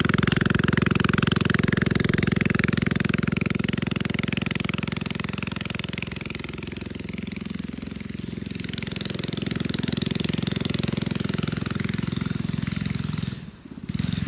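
Mini bike's small engine running with a fast, even chug. It fades somewhat in the middle, comes back louder, and drops away sharply near the end.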